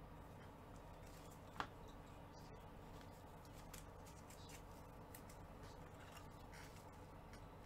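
Near silence: faint room hum with a few small clicks and rustles, and one sharper click about a second and a half in.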